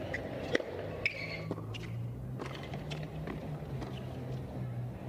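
Tennis rally on a hard court: a few sharp pops of rackets striking the ball, spaced irregularly, over a low steady arena hum.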